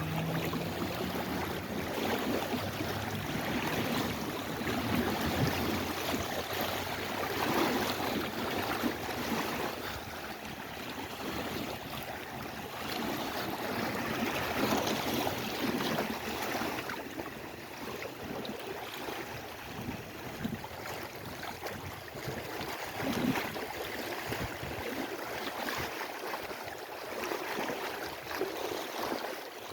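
Lake Erie waves lapping and washing against the shore, a continuous rush of water that swells and eases every few seconds.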